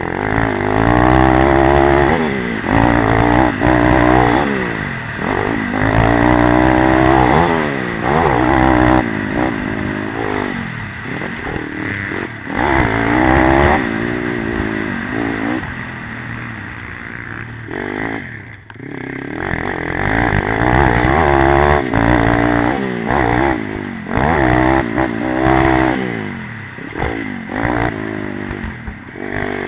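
Pit bike engine heard from on board, revving hard again and again: the pitch climbs and breaks off as the throttle is opened and chopped through the track's turns and jumps, with a short dip in the engine note about two-thirds of the way through.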